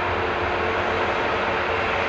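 Airbus A321neo jet engines running steadily as the airliner rolls along the runway for take-off: an even roar with a faint steady whine.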